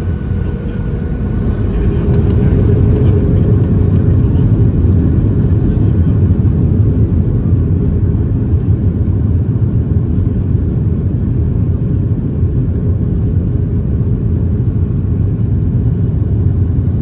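Boeing 737-800's CFM56-7B jet engines at high thrust for takeoff, heard from inside the cabin over the wing. A loud, steady low rumble builds over the first two seconds or so and then holds.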